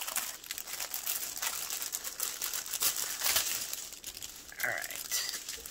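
Small plastic bags of diamond painting drills being handled, crinkling and rustling in quick, irregular crackles.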